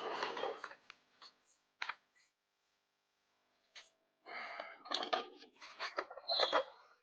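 Scattered clicks and short scuffing noises of hand work on a transmission and jack, with a quiet pause in the middle and a busier cluster near the end.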